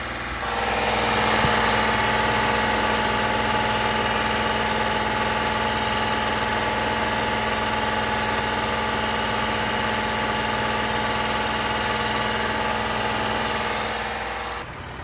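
Toyota 2GR-FE 3.5 L V6 running steadily, held above idle while the cooling system is bled of air. The engine sound drops back sharply about a second before the end, as the throttle is released.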